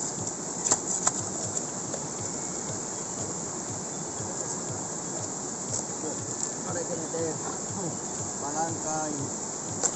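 Mountain stream rushing steadily over rocks, with a few sharp clicks of gravel in a plastic gold pan in the first second or so.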